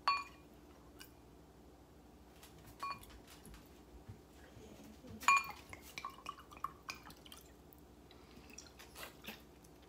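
Red wine poured from a glass bottle into a wine glass, the bottle's neck clinking against the glass rim three times with a brief ring, loudest the third time. Smaller clicks and gulps follow as wine is drunk straight from the bottle.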